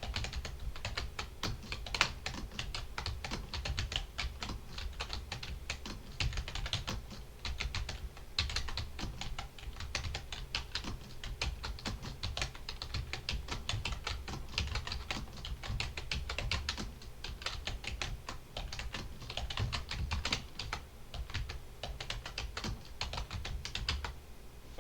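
Fast typing on a computer keyboard, a dense stream of keystroke clicks with a few short pauses, stopping shortly before the end.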